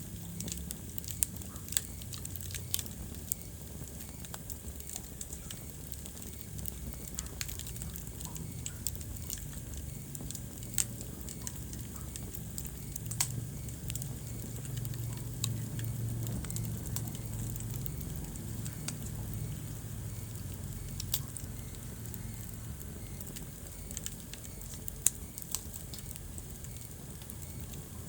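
Wood fire burning in a fireplace: irregular sharp crackles and pops, a few louder than the rest, over a steady low rumble of the flames.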